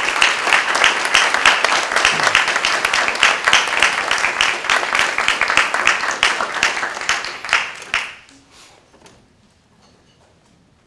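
Audience applauding: dense clapping that dies away about eight seconds in, leaving a few last scattered claps.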